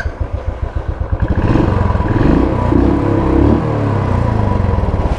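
Royal Enfield single-cylinder motorcycle engine running with a low, even thud at idle. From about a second in it is revved up and down a few times, then it settles back to a steady idle as the ride gets under way.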